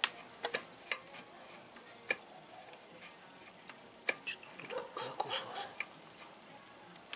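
Scattered light metal clicks and clinks, irregular and unevenly spaced, a few of them with a short ring: small tools and parts being handled during hands-on work in the engine bay.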